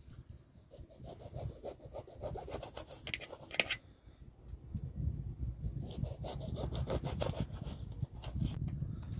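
Kitchen knife slicing a lemon into rounds on a metal tray: repeated cutting strokes through the fruit, with sharp clicks where the blade meets the tray.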